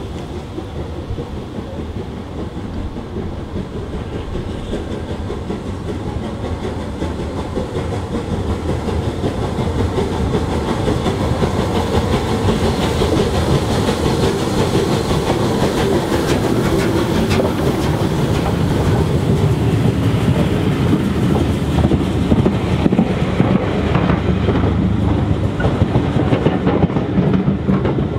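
Rebuilt Bulleid Battle of Britain class steam locomotive 34053 working a passenger train, growing steadily louder as it approaches and passes. Near the end the coaches follow, their wheels clattering over the rail joints.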